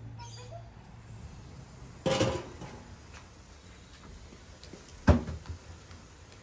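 Two knocks about three seconds apart, the second short and sharp.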